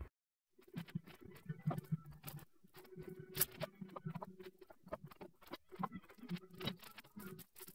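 Scattered light clicks and taps of hands working at a wooden pallet, with footsteps on a concrete floor, over a faint steady hum.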